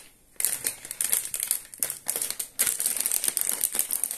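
Thin plastic polybag of a LEGO Friends set crinkling as hands grip, twist and pull at its sealed top to open it. The crackling starts about half a second in, after a short quiet moment, and carries on in quick, irregular crackles.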